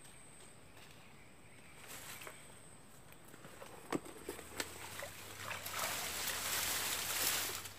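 Rustling of tall grass and leaves with shallow water and mud sloshing as a fish trap is worked into place by hand, with a couple of sharp clicks about four seconds in and the rustling growing louder in the last few seconds. A faint steady high insect whine sits underneath at the start.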